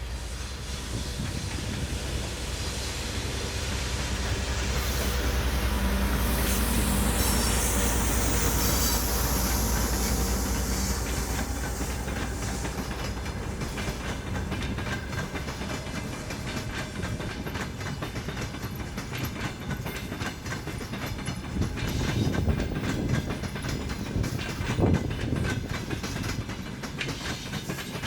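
A passenger train hauled by a diesel locomotive passing close by. The locomotive's engine drone builds and peaks a few seconds in, then the carriages clatter steadily over the rail joints, with heavier knocks near the end.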